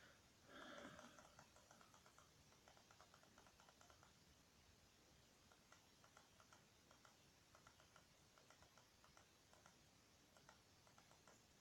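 Near silence with faint, quick, irregular clicking from typing on a computer keyboard.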